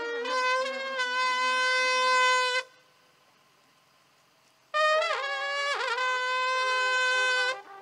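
Solo wind instrument playing slow music: a long held note, a pause of about two seconds, then a second held note that dips sharply in pitch twice before holding steady.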